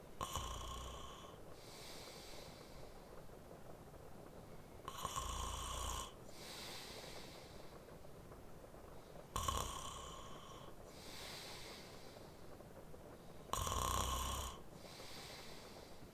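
A man snoring in his sleep: four snores on the in-breath, about every four and a half seconds, each followed by a softer out-breath, over a steady rain ambience.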